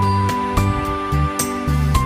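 Soft, gentle background music: a slow melody of held notes over steady bass notes.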